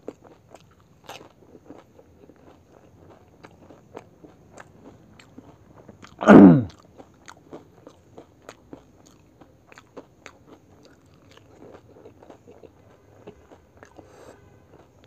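Close-miked chewing of pani puri: the crisp puri shells crunching, with wet mouth clicks several times a second. About six seconds in comes one loud, short sound that falls steeply in pitch.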